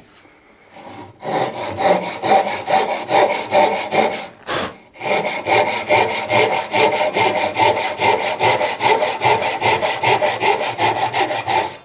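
Ryoba Japanese pull saw with crosscut teeth sawing through a wooden board in quick, even strokes, with a short pause about four seconds in. The cut is being taken diagonally down to the board's lower edge.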